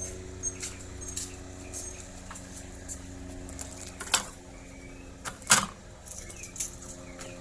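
Clicks and rustles of solid copper wire and an outlet being handled while the hooked wire ends are put onto the outlet's screw terminals, over a steady low hum. The handling is loudest in the first two seconds, followed by a few sharp single clicks.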